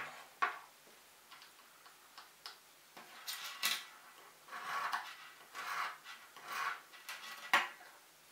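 Hand-held tungsten-alloy pocket sharpener drawn in short scraping strokes along a small steel blade, about one stroke a second through the second half. Light clicks and taps of the small metal tools being handled come in between, with a sharp click at the start and another near the end.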